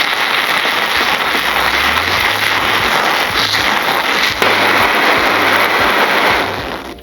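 Water spraying and pattering onto tent fabric as a steady, crackling hiss that stops about six and a half seconds in.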